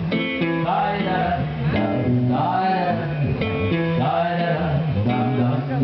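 Live band music with guitar prominent, playing on without words between sung verses of the song.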